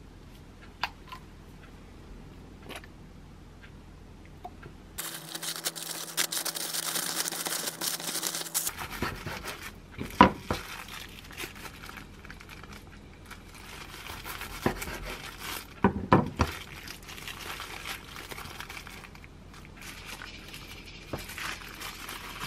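Parchment paper crinkling as a tortilla wrap is rolled up in it, a dense rustle about five seconds in. Then a knife cuts through the paper-wrapped roll and knocks sharply on a wooden cutting board, about ten seconds in and again near sixteen seconds, with lighter paper rustling between.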